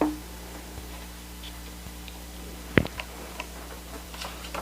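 A few light clicks and taps from the album's contents being handled, with one sharper click about halfway through, over a steady low electrical hum.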